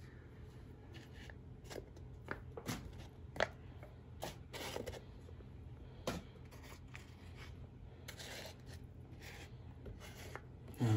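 Faint handling noise: a dozen or so short, irregular clicks and light rustles over a steady low hum.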